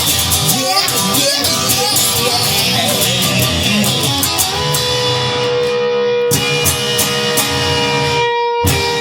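Instrumental break in a song: a guitar plays bending lead lines, then holds one long note from about halfway through. The music drops out for a moment just before the end.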